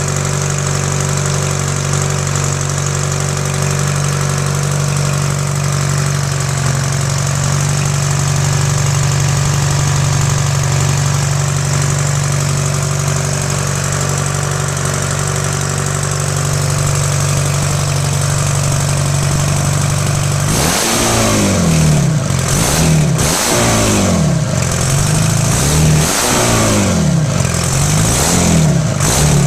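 Freshly rebuilt Detroit Diesel 4-53 four-cylinder two-stroke diesel running at a steady idle, then revved up and down repeatedly in quick blips through the last third.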